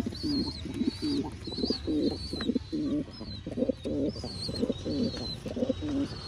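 Domestic pigeons cooing in the loft, several birds overlapping in a steady run of low coos, about two a second. Thin, high chirps repeat over the cooing.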